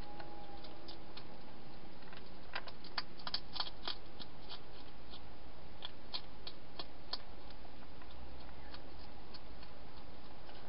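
Wild hedgehog eating at a bowl inside a plastic feeding box: irregular sharp clicks of its feeding, in a busy cluster a few seconds in and again past the middle, over a steady hiss.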